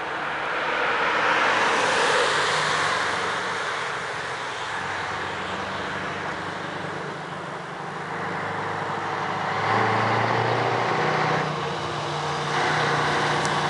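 A car passes close by in the first few seconds with engine and tyre noise, which fades as it drives away. Then the V8 diesel of an approaching Scania 143 450 truck is heard working in three surges, with short drops in between.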